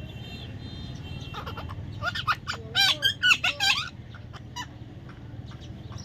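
A parrot squawking: a quick run of harsh, up-and-down calls starting about a second and a half in, loudest around the middle, then stopping about two seconds later.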